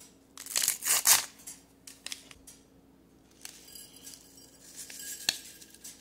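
MRE packaging being handled: a few loud crinkling, tearing rustles about a second in, then softer rustling and light clicks, with one sharp click near the end.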